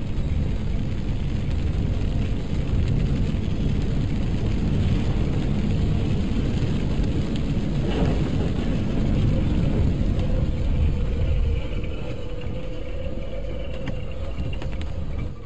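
In-car dashcam noise of a car driving on a wet road in rain: a steady rumble of tyres and engine with rain and the wiper on the windscreen, and a short knock about eight seconds in.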